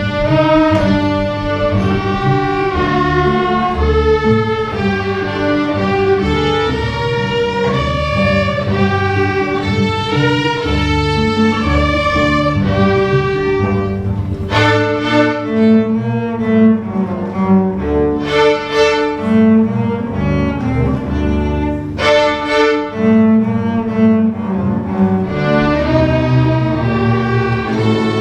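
School string orchestra of violins, cellos and double basses playing a melody in harmonic minor over a low bowed bass line, with a few sharp accented notes in the second half.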